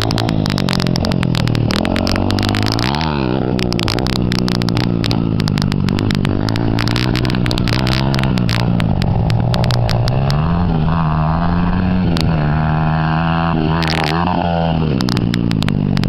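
Small four-stroke Honda CRF80 and CRF100 dirt bike engines running, their pitch rising and falling with the throttle as the bikes ride and hit jumps.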